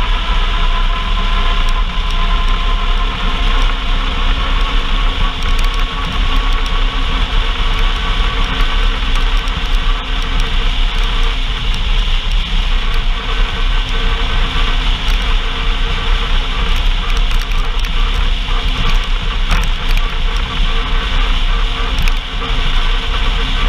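Off-road vehicle engine running steadily under way, its note rising slightly over the first several seconds, over a constant heavy low rumble and hiss.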